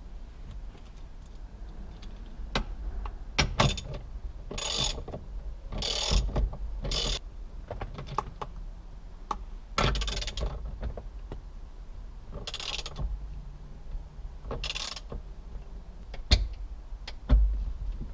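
Ratchet wrench worked in short runs of clicking, about six of them spread out, tightening the steering wheel onto its column. A few sharp knocks fall in between.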